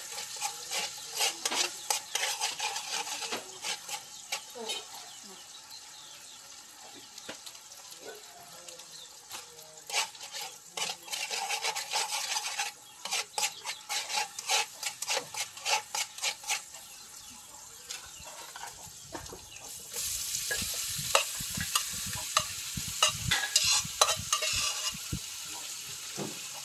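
Stir-frying in a wok: food sizzling with a steady hiss while a metal utensil stirs and scrapes against the pan in many quick strokes. About twenty seconds in, the sizzle turns suddenly louder.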